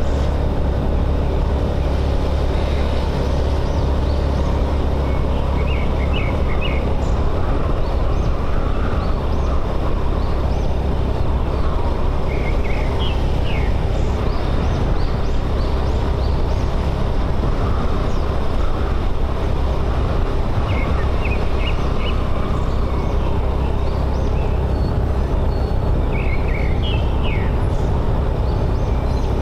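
Motorbike engine running steadily at a constant cruising speed, with wind and road noise. Short bird chirps come through a handful of times.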